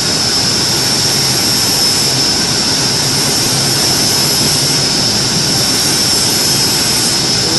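Steady, loud mechanical roar with a constant high-pitched whine running through it, unchanging throughout.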